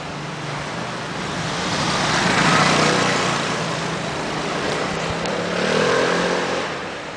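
Motor scooter engine passing close by on the street, growing louder to a peak a couple of seconds in and easing off, then swelling again with a short rising engine note near the end.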